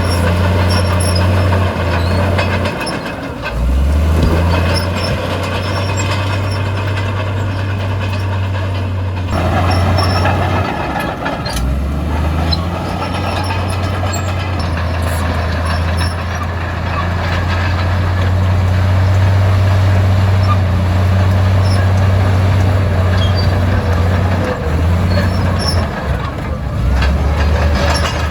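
Heavy diesel engine of an earthmoving machine running steadily under load, with short breaks and abrupt shifts in the sound about three, nine and twelve seconds in.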